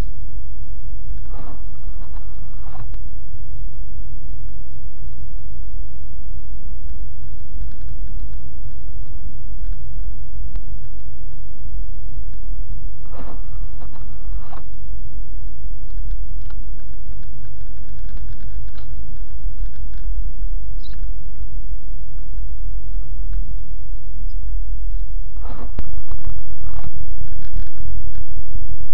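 Car driving on a snow-covered road, heard from inside the cabin through a dashcam microphone: a steady low rumble of tyres and engine, with a few short knocks. It gets louder near the end.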